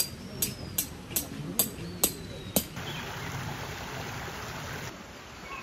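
A run of seven sharp knocks, about two a second, each with a brief ring. Then a change to a steady outdoor hiss with faint bird chirps.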